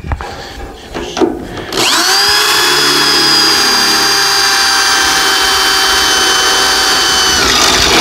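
Corded electric drill boring a bolt hole down through the end plate of an aluminium loading ramp. A few light knocks come first, then the drill spins up about two seconds in and runs with a steady whine, which drops in pitch near the end as the motor slows under the load.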